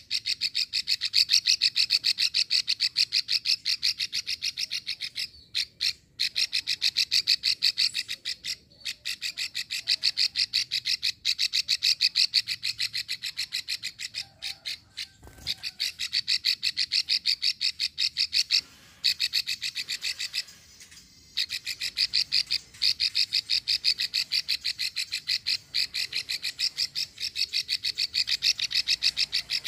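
Female plain prinia (prenjak sawah) giving its long rattling 'ngekrek' call: a rapid, even run of sharp high clicks, broken several times by brief pauses.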